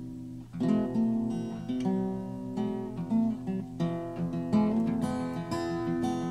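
Background music: an acoustic guitar picking and strumming chords, with a short pause about half a second in.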